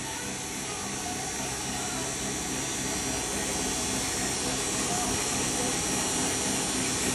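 Steady machine noise: a low hum with a strong hiss above it, growing slightly louder, with no strokes or knocks.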